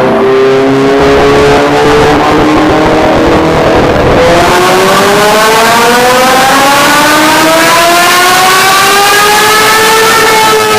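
Honda CBR1000RR-R SP's inline-four engine under load on a dyno run. The revs rise, drop back about four seconds in, then climb steadily for several seconds before levelling off near the end.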